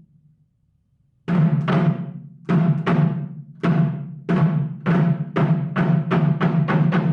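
Drum beats start after about a second of silence. They come slowly at first, then speed up into a quick, steady pulse, each stroke ringing briefly at a low pitch.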